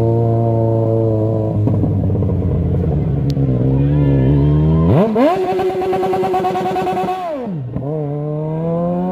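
Yamaha XJ6's 600 cc inline-four engine idling, blipped lightly a few times, then revved hard about five seconds in and held at the rev limiter for about two seconds, the note chopping as the cut-off acts, before dropping back to idle.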